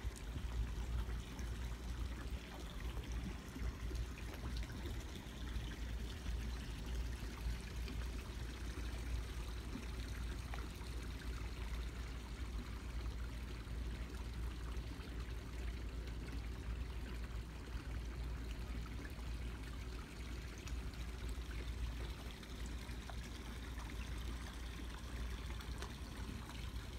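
Water lapping and trickling against the hull and dock, a steady flickering noise with a low rumble underneath.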